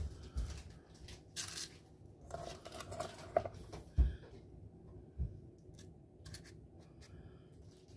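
Kitchen handling noises as a muffin tin is filled with batter: paper cupcake liners crinkling and rustling, and a few dull knocks as the metal muffin tin is shifted on the countertop, the loudest about four seconds in.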